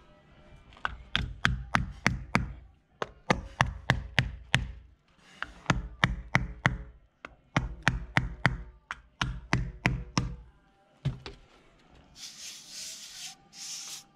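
Hammer driving plastic insulation dowels into insulation boards on a wall: runs of quick, sharp knocks, about five a second, with short pauses between runs. Near the end the knocking stops and a couple of hissing, scraping bursts follow.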